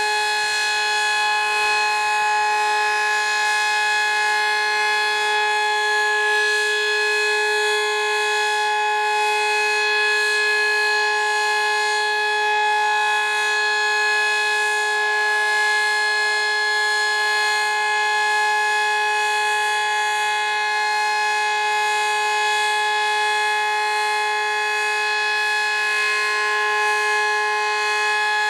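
Sterling M-10 outdoor warning siren with 8/16-port rotors, sounding during a tornado siren test. It holds one steady, loud pitch rich in overtones, with no rise or fall.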